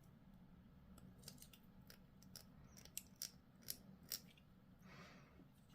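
Faint, sharp clicks of plastic miniature parts being handled, several spaced irregularly, with a soft rustle near the end.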